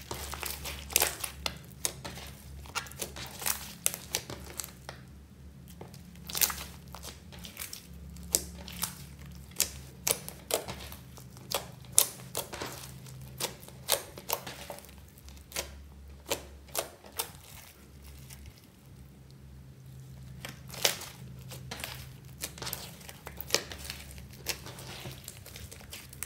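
Hands squishing and kneading a large mass of clear glitter slime mixed with foam beads: irregular sticky crackles and pops, a few a second, with quieter stretches between. A faint steady low hum runs underneath.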